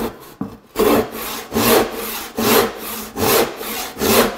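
Western hand saw cutting a scrap board in steady, even strokes, a little over one a second, starting about a second in. It is a freehand test cut with a freshly sharpened saw, left to track on its own to check for drift.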